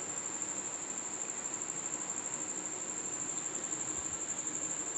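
Crickets chirping steadily: a constant high-pitched trill that pulses several times a second, over a soft background hiss.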